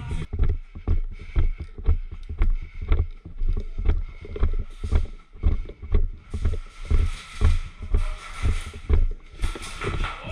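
Footsteps at a steady walking pace, about two thuds a second, with rustling; a hissing rustle grows louder between about six and ten seconds in.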